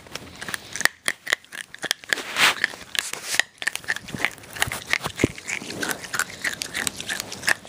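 Hard candy being crunched between the teeth: an irregular run of sharp crunches and cracks.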